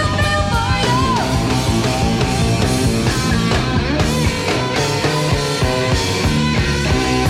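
Live rock-fusion band playing, with electric bass, drum kit and other instruments, heard off an old cassette recording of an FM broadcast.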